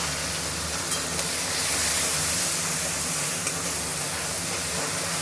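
Onion paste frying in hot mustard oil with whole spices in a pan: a steady sizzle.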